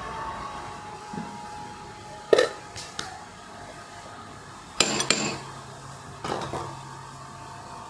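A few sharp metallic clanks and clinks, as steel pieces or tools are knocked together and set down, over a steady machine hum.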